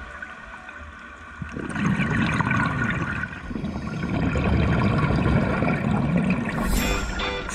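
Scuba regulator exhaust bubbles gurgling and rushing underwater, starting about a second and a half in and swelling and easing in waves.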